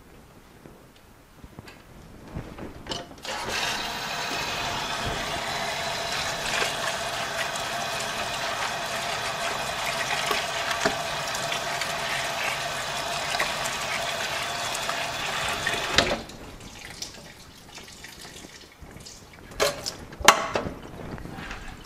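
Water from a garden hose running into a plastic bucket over seeds in mesh netting, starting about three seconds in and shutting off suddenly after about thirteen seconds. A few sharp knocks near the end.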